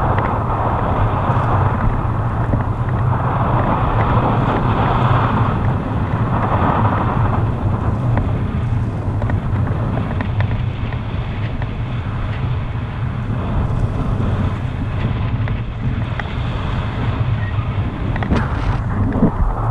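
Wind rushing over a handheld camera's microphone in paraglider flight: a steady, loud, low rumble of airflow.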